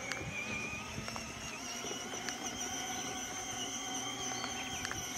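Ride-on toy truck's electric drive motors and gearboxes whining steadily at full throttle on the stock 12-volt battery, crawling over grass at about 2 mph, with a few faint ticks.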